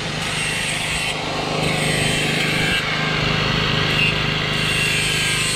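Portable generator running steadily, a constant low hum.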